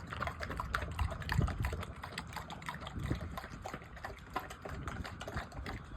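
American Bully dogs lapping cereal and milk from a bowl: a steady run of quick, wet clicks of tongues in liquid.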